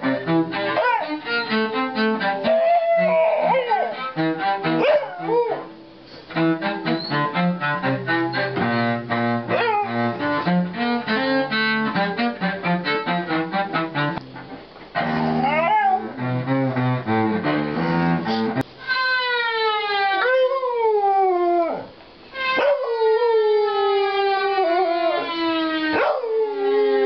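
Cello playing a quick run of notes with a small dog howling along over it in the first few seconds. About two-thirds of the way through the cello stops and the dog howls on alone: four long howls, each sliding down in pitch.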